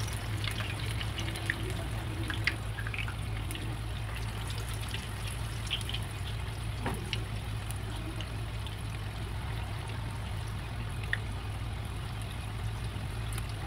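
Urad dal vadas deep-frying in a pan of hot oil: a steady bubbling sizzle with scattered small crackles, over a low steady hum.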